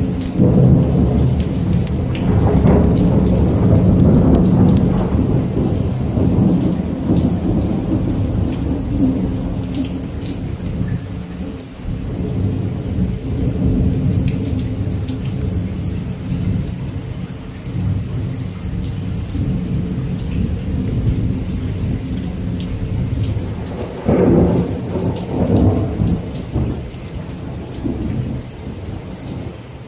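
Steady rain with rolling thunder: a long low rumble through the first several seconds that slowly dies away, and another roll of thunder about 24 seconds in.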